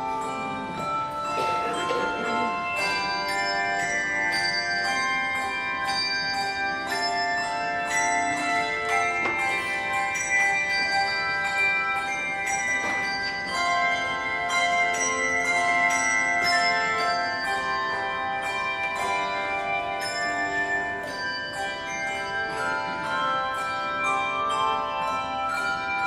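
Handbell choir ringing a hymn arrangement: many tuned handbells struck in succession and together, several notes sounding at once, each ringing on and overlapping the next.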